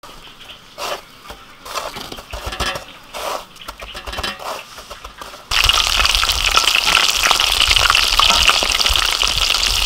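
Hands pressing and rubbing shrimp in dry breadcrumbs, giving soft, irregular crunching and rustling. About halfway through it switches suddenly to loud, steady sizzling of breaded shrimp deep-frying in a wok of hot oil, the loudest part.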